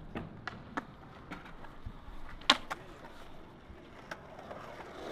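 Skateboard wheels rolling on concrete, growing louder near the end as the skater approaches the six-stair set. Light scattered clicks, with one sharper click about halfway through.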